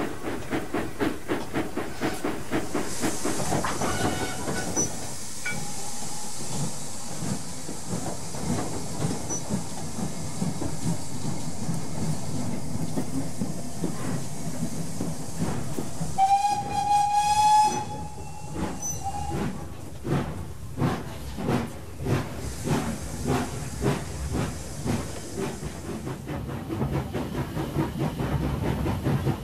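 Steam locomotive sound effects: rhythmic chuffing, then a long hiss of steam, then a steam whistle blown for about two seconds. After the whistle the chuffing picks up again as the engine works along.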